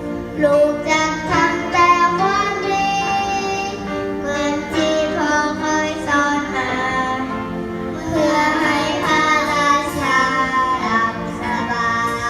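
A young girl singing a melody over backing music, amplified through a PA sound system during a sound check.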